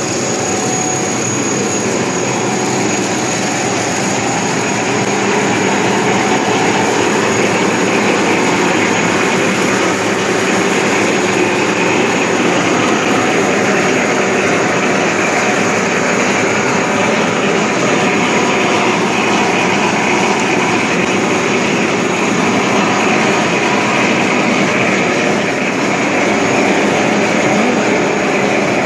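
Steady machinery noise of a running core-filled corn puff extrusion line (extruder, cutter and conveyor), with a thin high whine that is strongest in the first couple of seconds.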